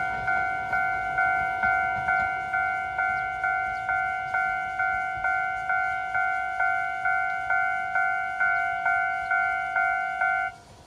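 Railway level-crossing warning bell ringing at an even pace of about two strikes a second, each strike a ringing bell-like tone. It cuts off suddenly near the end as the crossing warning stops.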